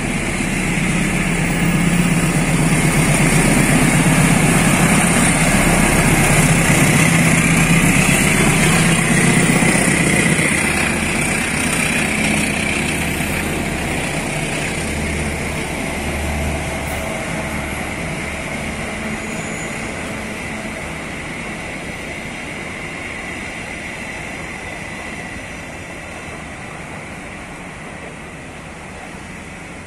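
Passenger train passing: the diesel locomotive's engine runs loudly for the first ten seconds or so, then the rumble of the coaches rolling on the rails takes over and fades steadily as the train draws away.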